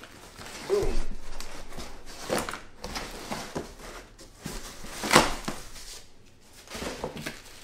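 Cardboard packing sheets being lifted and shifted in a large shipping box: irregular scraping and rustling with a few knocks, the sharpest about five seconds in.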